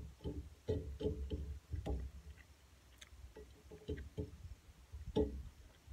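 Irregular short chewing and mouth noises of a person eating, over a low steady rumble.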